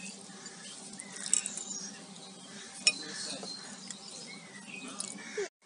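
Cutlery and plates clinking as cake is cut and served, a few separate sharp clinks over a low, steady room background. The sound cuts off suddenly near the end.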